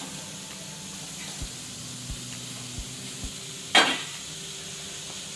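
Sliced onions being pushed off a stainless-steel plate into a metal kadhai on a gas stove, with a few soft knocks over a steady hiss. About four seconds in comes one sharp metallic clank of the steel plate against the pan, the loudest sound.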